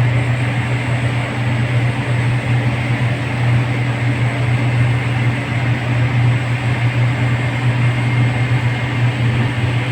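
Pellet-fired steam boiler plant running: a steady, loud low hum with a rushing noise over it, as from the boiler's draft fans and burner.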